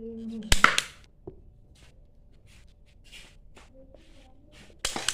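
Toy gun firing twice, about four seconds apart: each a sharp snap, the first followed straight away by a second knock. Faint short hissing puffs lie in between.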